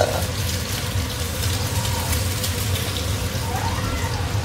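Hot oil sizzling and crackling as an egg fries in a pan, over a steady low hum, with a brief clink right at the start as the egg is turned.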